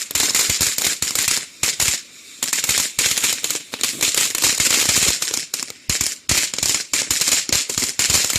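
Firework crackling: a rapid, dense stream of small sharp pops over a hiss, with brief lulls about two and six seconds in.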